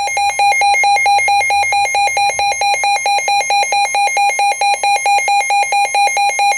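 Emergency alert attention signal: a loud electronic alarm tone pulsing rapidly and alternating between two pitches, sounding ahead of a Special Marine Warning broadcast.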